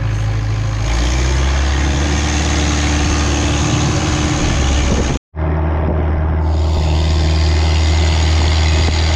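Longtail boat engine running steadily under a wide hiss of wind and water, its low hum dropping slightly in pitch about a second in. About five seconds in the sound cuts out for an instant and resumes unchanged.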